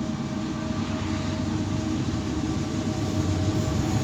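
Approaching train: a steady rumble with a few steady tones above it, growing gradually louder.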